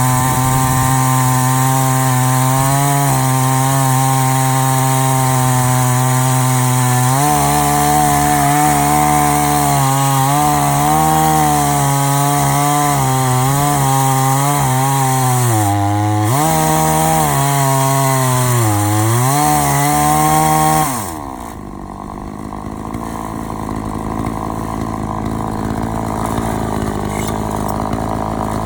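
Two-stroke chainsaw at full throttle, cutting a log through an Alaskan chainsaw mill; the engine's pitch wavers and dips several times as it is loaded down in the cut. About 21 s in the throttle is released and it drops to a steady idle.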